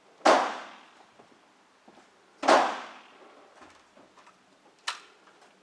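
Two rimfire rifle shots about two seconds apart, each fading out over about half a second, then a sharp, quieter click near the end.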